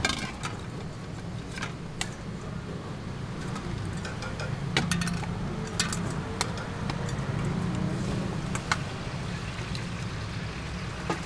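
Metal tongs and skewers clicking against a stainless steel bowl and chopping board in a few scattered sharp clicks, over a steady low hum of street background noise.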